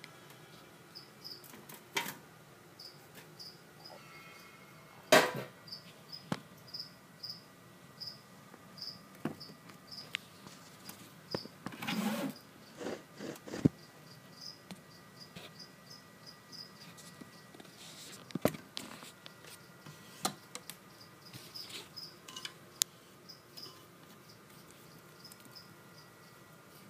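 Cricket chirping steadily, a few short high chirps a second, with scattered knocks and rustles. The loudest knock comes about five seconds in.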